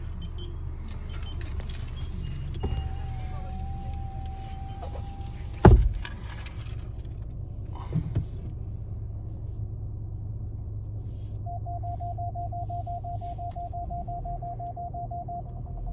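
Inside a car with a low engine hum: a power window winds up and shuts with a loud thump about six seconds in, after a beep held for a couple of seconds. Later a rapid electronic beeping starts and turns into one solid tone near the end.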